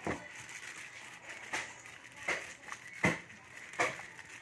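Clear plastic wrapping crinkling in the hands as it is handled and unwrapped, in about five short crackles.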